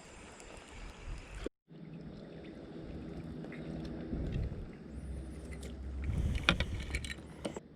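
Wind and water noise on a fishing kayak, broken by an edit cut about a second and a half in, then a low steady rumble and a few sharp clicks and knocks near the end.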